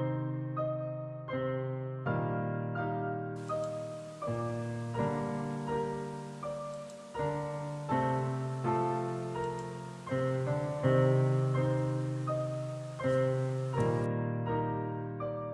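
Slow, gentle piano music: single notes and chords struck about once or twice a second, each ringing and fading before the next, with a faint hiss behind it from about three seconds in to near the end.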